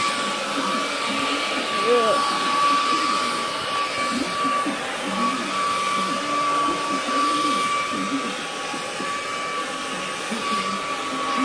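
A small electric motor blowing air runs steadily: a constant whine over a rushing hiss, with no change in speed.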